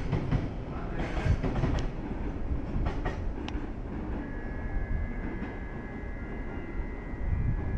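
A container freight train's wagons rolling past, a steady rumble with a few clacks of wheels over rail joints, growing quieter as the last wagons go by. A faint steady high tone comes in about four seconds in.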